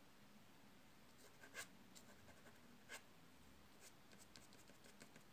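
Faint scratching of soft pastel and fingertips on textured Fabriano drawing paper. Two short sharper ticks come about one and a half and three seconds in, then a scatter of small faint ticks.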